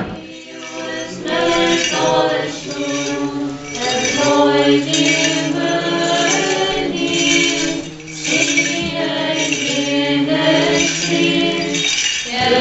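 Several voices singing Byzantine chant together in phrases over a steady held low drone note, the ison.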